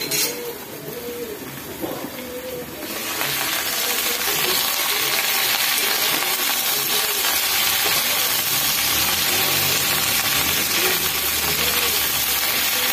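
Vegetables frying in hot oil in a kadai, with a few clicks from the lid at the start; about three seconds in the sizzle becomes loud and stays steady as the uncovered pan is stirred with a spatula.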